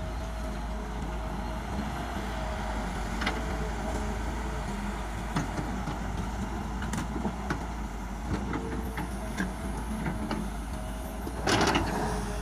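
Kobelco hydraulic crawler excavator's diesel engine running steadily under load as the bucket digs through rocky soil, with scattered clicks and knocks of stones against the steel bucket. A louder burst of noise comes near the end.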